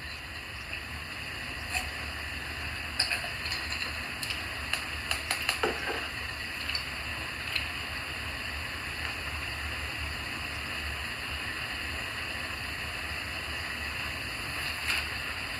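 Steady background hiss and low hum of a room, with a few light taps and clicks of objects handled on a table in the first half.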